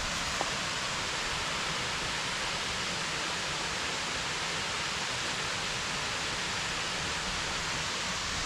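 Waterfall pouring steadily: an even, unbroken hiss of falling water.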